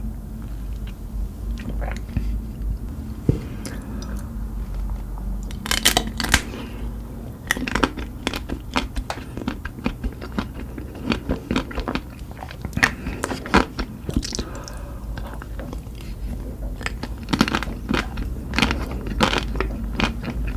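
Close-miked eating sounds of ice cream: a person biting and chewing, with many sharp crunches coming thick and fast from about six seconds in.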